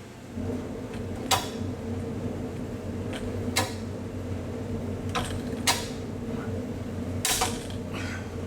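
Hand rivet gun being worked on a rivet in sheet metal, a sharp metallic click at each squeeze of the handles, five in all, the last the strongest. A steady hum runs underneath.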